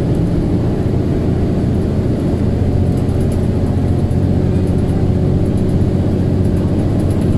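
KMB bus's engine and very loud radiator cooling fan running steadily as the bus drives along, heard from inside the cabin as a continuous low hum.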